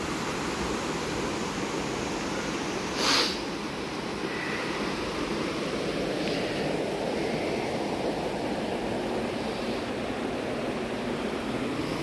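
Steady rush of water cascading down a mountain creek, with one sharp knock about three seconds in.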